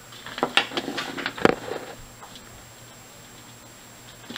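Small clicks and knocks of handling as a plastic lighter with a copper-wire tip is picked up and laid down on a plywood workbench, several in the first two seconds, the loudest a knock about a second and a half in.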